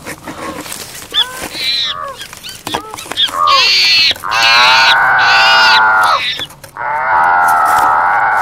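Loud, high-pitched shrieking: short wavering cries that swoop up and down in the first half, then two long, drawn-out shrieks of about two seconds each, with a few knocks between them.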